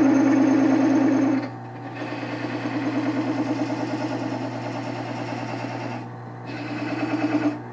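Wood lathe running with a turning tool cutting into a spinning Osage orange blank, a fast rattling cut over a steady motor hum. The cut breaks off twice as the tool is lifted, about a second and a half in and again about six seconds in.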